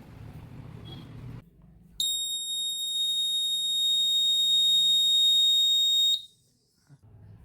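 Buzzer of a homemade PIR motion-detector alarm, set off by its motion sensor, sounding one steady high-pitched tone for about four seconds; it starts about two seconds in and cuts off suddenly.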